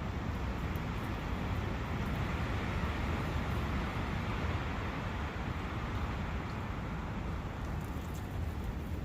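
Brook in a forest: a steady rushing noise of flowing water over a low rumble. It swells a little a few seconds in, then settles.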